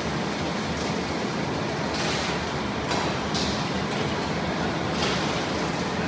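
Steady mechanical running noise of a continuous coconut-shell carbonization furnace and its drive machinery, with a few short bursts of hiss.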